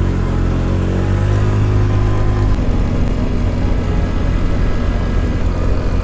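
Motor scooter's small engine pulling away under throttle, its note rising over the first two seconds or so and then holding steady while riding along, with wind noise on the microphone.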